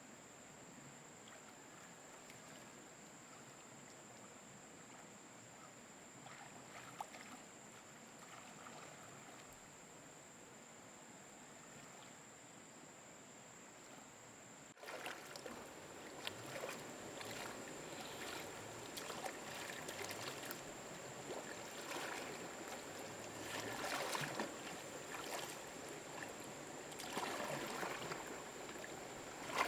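Water splashing and lapping, with irregular swells and small clicks, louder after an abrupt cut about halfway through. A steady high-pitched whine runs throughout.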